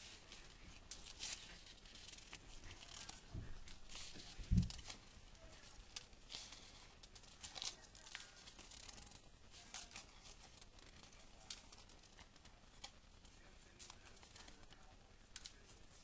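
Folded paper slips being stirred by hand in a stainless steel bowl, rustling and crinkling in short irregular crackles. A dull thump about four and a half seconds in is the loudest sound.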